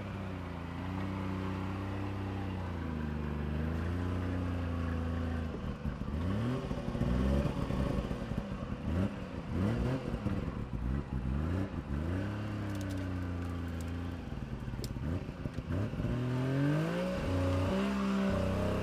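Small Suzuki 4x4's engine labouring up a rocky climb: steady revs for the first few seconds, then choppy, repeated rises and falls in revs through the middle as the throttle is worked over the rocks, and the revs climbing again near the end.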